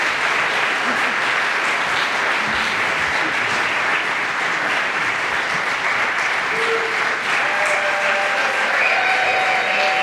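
Audience applauding steadily, with a few faint held calls or cheers rising out of it in the last few seconds.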